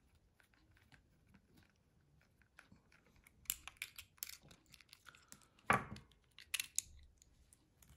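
Faint clicks and scrapes of a small screwdriver backing out the screws that hold a Wahl T-wide blade on a hair trimmer, with the small parts handled by hand. One louder knock comes a little before six seconds in.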